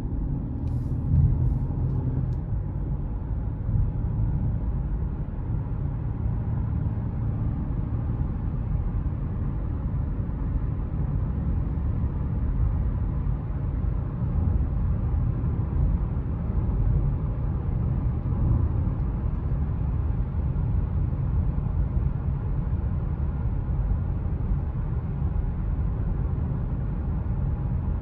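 Steady low rumble of a 2005 Mercedes-Benz C320 cruising at a constant speed: road and tyre noise with its 3.2-litre V6 engine, heard from inside the cabin.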